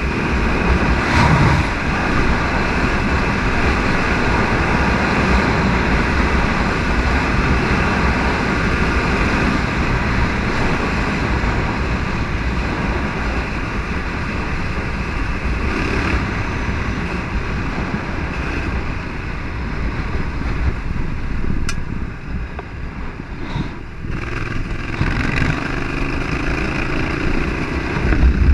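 Yamaha Ténéré 700 parallel-twin motorcycle running at road speed, its engine under steady wind and road noise; the level drops briefly about two-thirds of the way through.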